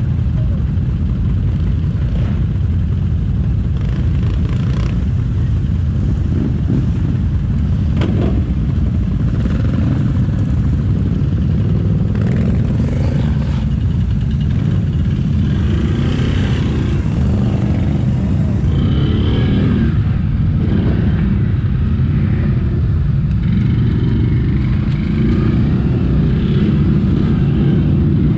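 ATV engine running continuously, its note shifting up and down in the second half, with a sharp knock about eight seconds in.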